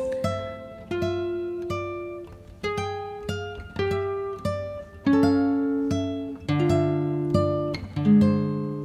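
Background music: an acoustic guitar playing slow picked notes and chords, each one ringing and fading before the next, about one every half second to a second.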